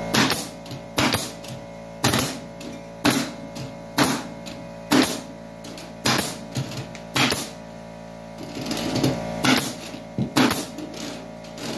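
Pneumatic fastener gun firing staples or nails through metal lath into a wooden subfloor, one sharp shot about every second, with a brief pause a little past the middle. Music plays steadily underneath.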